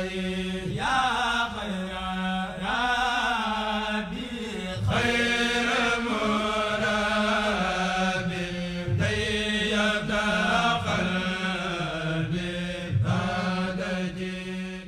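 Background music: a chanted vocal line in long, sliding phrases over a steady low drone.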